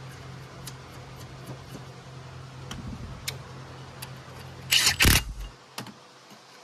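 Hand work on the ATV axle: faint clicks over a steady low hum, then two loud clattering knocks about five seconds in, after which the hum stops.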